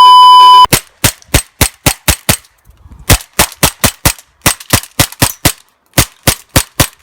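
A steady electronic beep, then an ASG CZ P-09 CO2 blowback airsoft pistol fired rapidly about two dozen times in three quick strings with short pauses, emptying its magazine.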